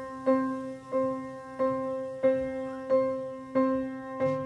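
Background music: a piano striking the same note over and over, about every two-thirds of a second, each note dying away. Lower notes join near the end.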